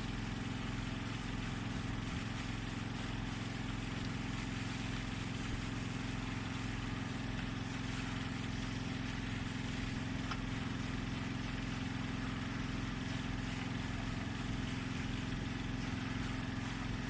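Caterpillar excavator's diesel engine idling with a steady, unchanging hum.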